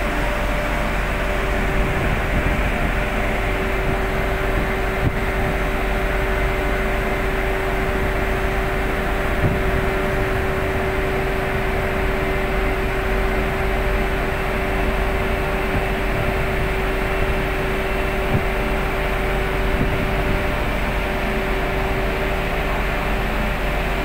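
Ship's machinery running with a steady, unchanging drone and a constant hum.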